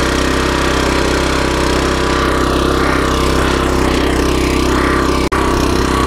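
Rear-tine rototiller's small gasoline engine running steadily as its tines churn through grassy, root-filled ground, on a newly fitted drive belt. The sound breaks off for an instant about five seconds in.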